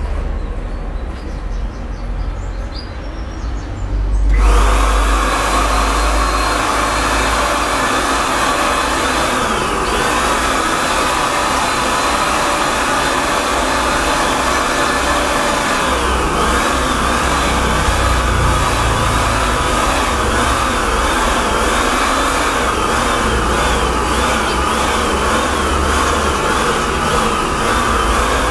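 Handheld electric paint spray gun, the kind that needs no compressor, starting up about four seconds in as it sprays paint onto a car wheel rim. It runs with a steady motor noise and a high whine, dips briefly twice, and in the second half the whine wavers up and down rhythmically.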